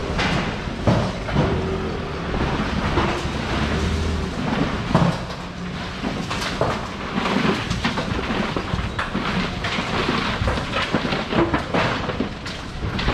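Wet city street noise: a steady wash of traffic and rain, with a vehicle engine humming low for the first few seconds and scattered knocks and clatter throughout.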